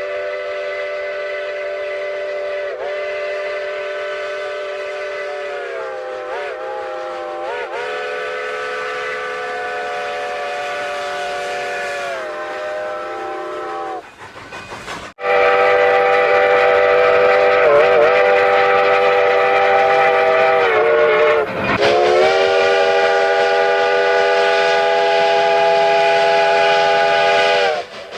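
Chime train whistle sounding a chord of several notes at once in two long blasts. The first lasts about fourteen seconds, its pitch wavering briefly a few times. The second, louder blast starts after a short break about halfway through and dips briefly in pitch partway along.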